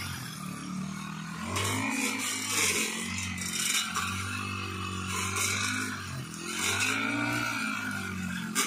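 Backpack brush cutter engine running under load, its pitch rising and falling repeatedly as the blade swings through tall grass, with brief hissing swishes as the grass is cut.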